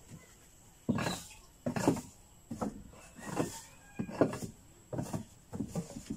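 A long-handled tool scraping and knocking along the wooden plank floor of a cow shed, about eight strokes at a steady pace of roughly one a second, as old fodder and debris are cleared off the boards.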